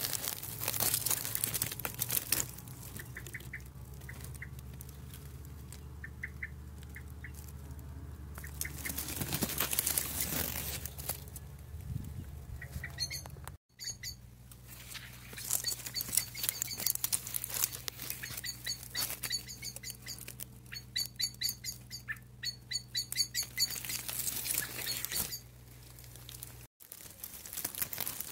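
Leaves and twigs rustling as the camera is pushed through undergrowth, with small birds chirping in short repeated series in the background over a steady low hum.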